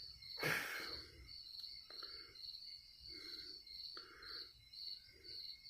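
Faint crickets chirping in an even, pulsing rhythm of a few chirps a second, with a lower call repeating about once a second and a brief noise about half a second in.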